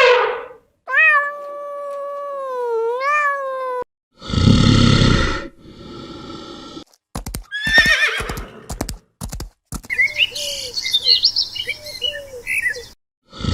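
Several different animal calls cut one after another: a long wavering pitched call, then a loud harsh call, a run of sharp clicks with short calls, and finally many quick chirping calls.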